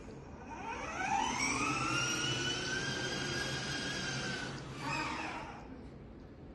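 Electric drive motor of a battery-powered ride-on toy jeep whining as it pulls away. The whine rises in pitch over about a second, holds steady, and cuts off about four and a half seconds in, followed by a brief second whine.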